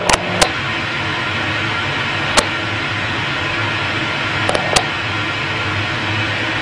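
Steady, fairly loud hiss of static noise with a faint low hum, broken by a few sharp clicks.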